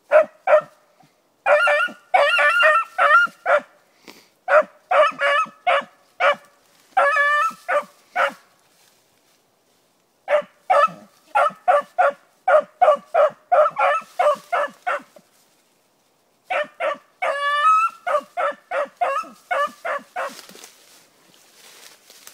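Beagle hound giving tongue while trailing a rabbit: quick runs of barks with some drawn-out bawling notes, in three bouts broken by short pauses about 8 and 15 seconds in.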